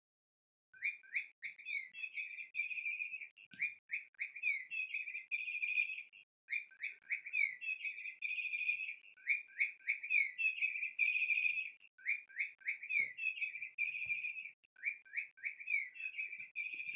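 SmartyKat Chickadee Chirp electronic cat toy playing its recorded chickadee call: a run of quick chirps followed by buzzy notes, the phrase repeating about every three seconds.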